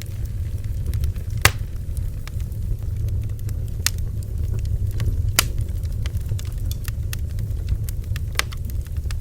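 Bonfire burning: a steady low rumble with scattered crackles and sharp pops from the burning wood, a few louder pops spread through.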